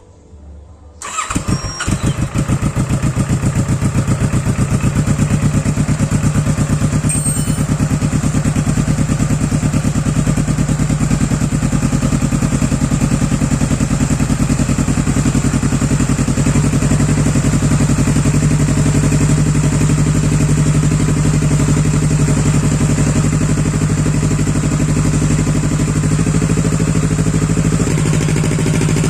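Motorcycle engine starting about a second in, then idling steadily with an even exhaust pulse.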